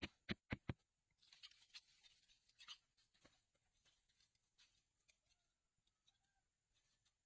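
A quick run of sharp knocks, about four a second, stopping within the first second, followed by a stretch of rustling and a few faint scattered ticks.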